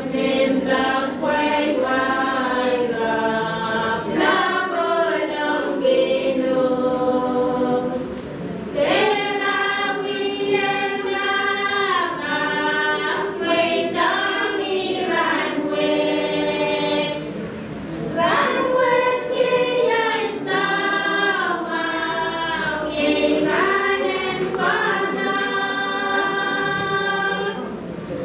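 A group of voices singing together in harmony, unaccompanied, in long held phrases of about nine seconds with a brief break between them.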